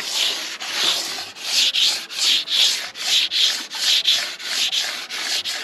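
A wet 200-grit diamond file in an edge guide rubbed back and forth along a ski's steel side edge, a gritty scraping in quick strokes, about two or three a second, sharpening the edge and giving it a finer finish.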